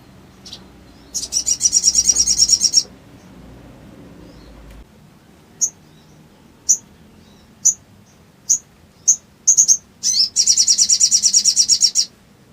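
Sogok ontong (little spiderhunter) calling. It gives a high, rapid trill near the start, then single sharp chip notes about once a second, quickening into another rapid trill near the end.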